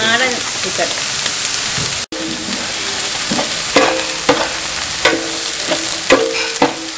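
Sliced onions, green chillies and curry leaves sizzling in hot oil in a large metal pot, a steady hiss. In the second half a ladle stirs and knocks against the pot several times, each stroke ringing briefly. The sound drops out for an instant about two seconds in.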